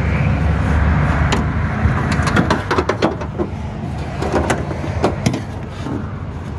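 Scattered clicks and knocks of gloved hands working in a car's trunk lid around the latch and wiring, handling plastic and metal parts, over a steady low hum.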